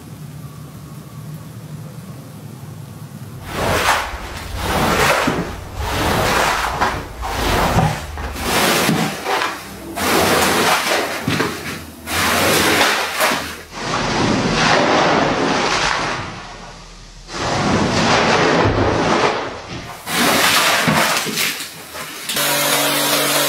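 Rug being rinsed and worked over on a wet floor: repeated strokes of rushing, hissing water, each lasting about a second, with short gaps between. Near the end a motor starts running steadily.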